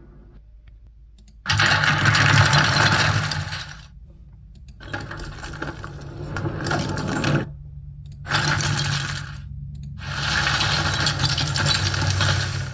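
A film sound effect: four bursts of dense mechanical noise, each one to two and a half seconds long with short gaps between, over a steady low hum.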